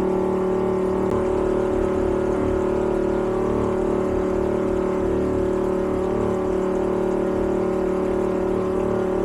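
Farm machine engine running at a steady, unchanging speed: a loud, even drone of one fixed pitch over a low rumble.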